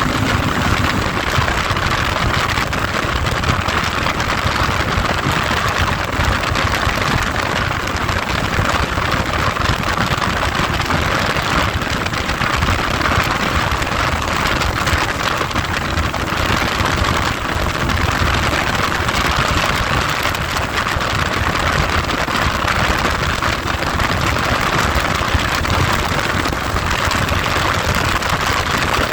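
Heavy wind noise buffeting the microphone on the move: a steady, loud rushing hiss, with a low rumble from the vehicle and road underneath.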